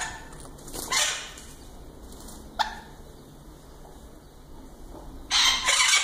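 Sun conure giving harsh, screeching calls: a few short ones, then two loud, longer screeches near the end.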